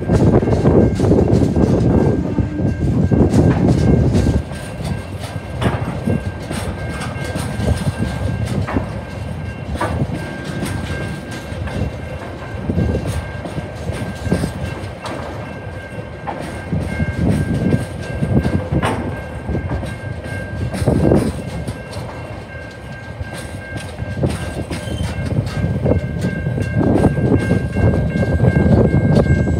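Container freight train's loaded flat wagons rolling past on steel rails. A heavy rumble drops about four seconds in, then the wheels click over the rails at uneven intervals, and the rumble builds again near the end, with a steady high tone above it.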